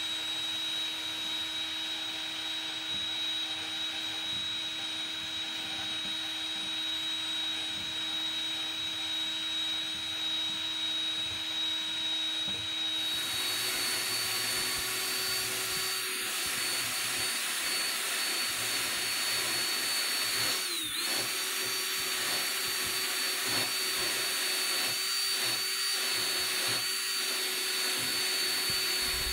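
Cordless drill spinning a coarse wire cup brush against the live edge of a reclaimed wood board, stripping off the bark: a steady motor whine. The pitch shifts a little about halfway through, and dips briefly once later on.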